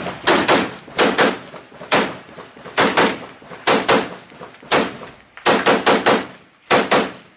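Automatic gunfire in short bursts of two to four shots, about one burst every second, eight bursts in all.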